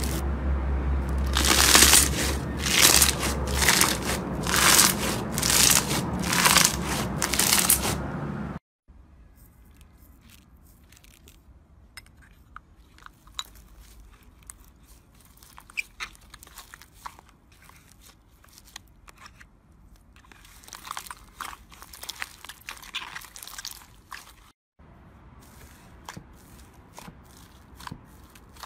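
Hands working slime: a white foam-bead (floam) slime gives repeated loud crunches, about one a second, over a low hum. After a sudden cut the sound drops to faint crackles and clicks as hands press slime holding foam sponge cubes and beads.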